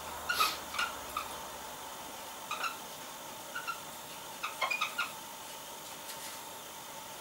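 Whiteboard marker squeaking against the board while writing, about a dozen short high squeaks in quick clusters over the first five seconds.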